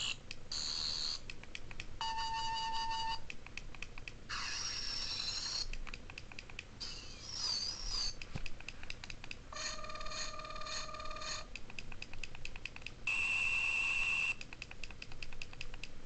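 Toy sonic screwdriver's electronic sound effects: about six different high-pitched buzzing tones, each lasting a second or two, some steady, some sweeping up and down or warbling. Each is separated from the next by a run of quick clicks.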